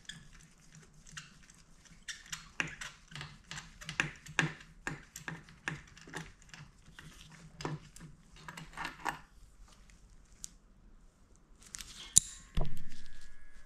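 Ratchet wrench clicking in irregular runs while a spark plug is worked out of a front cylinder of an Aprilia Tuono V4. Near the end comes a sharp click, then a metal clank that rings and fades.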